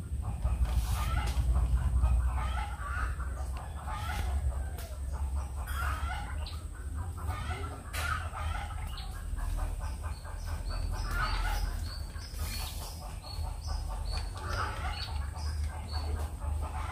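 Chickens clucking on and off, with short high chirps repeating in the second half and a steady low rumble underneath.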